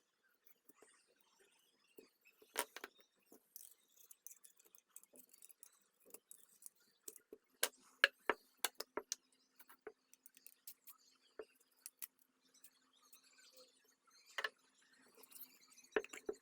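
Scattered light clicks and taps of small objects being handled, irregular and sharp. A faint steady hum runs under them from about halfway through.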